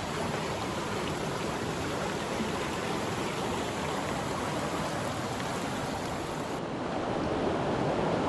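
Steady rush of a mountain stream's flowing water, its tone shifting slightly near the end.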